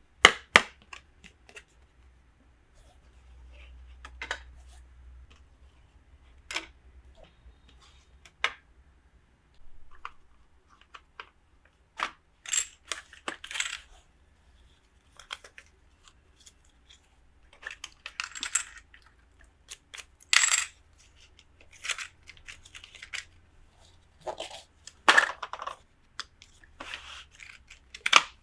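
Small hard plastic toy pieces and packaging being handled: scattered sharp clicks and taps, with short bouts of crinkling and rustling every few seconds.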